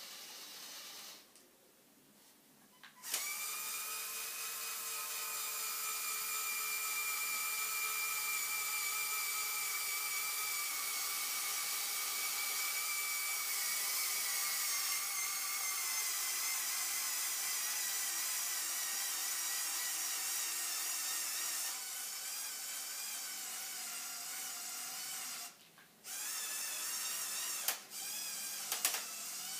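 Electric motors and plastic gear trains of a Lego Technic 42100 Liebherr R 9800 excavator whining as the boom and bucket move. The whine starts after a short pause and runs steadily with its pitch slowly sinking. It stops briefly a few seconds before the end, then comes back in short spurts.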